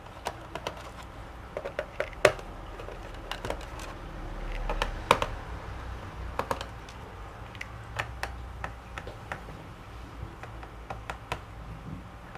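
Small screwdriver and screws clicking and tapping irregularly as the rear screws come out of a laptop's bottom cover, with sharper clicks about two seconds in and about five seconds in.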